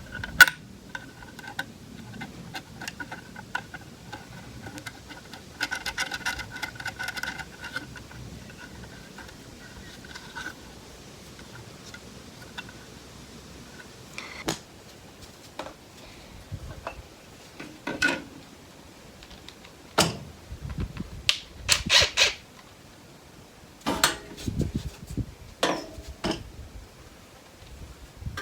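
Hand work on small metal parts, a horn bracket and its nut being handled and fitted: scattered clicks, knocks and rattles, clustered in the second half. A faint steady whine runs through the first ten seconds and then stops.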